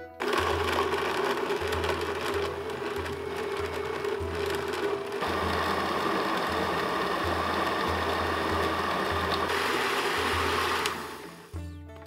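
Countertop blender motor starting up and blending chopped oranges, lemon, ginger, carrot and tomato with water into a smooth purée; its note changes about halfway through as the pieces break down, and it stops about a second before the end.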